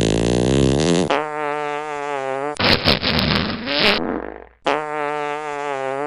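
A string of fart sound effects. The first fart wavers in pitch and runs into a long, steady buzzing one. About two and a half seconds in comes a short, crackling sputter, followed by another long buzzing fart that cuts off suddenly.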